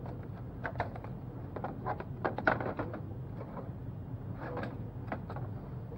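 Plastic and metal clicks and clacks as a cassette case is handled and pushed into a slot in a media machine. There is a cluster of knocks in the first half, the loudest about two and a half seconds in, and a few more near the end, over a steady low hum.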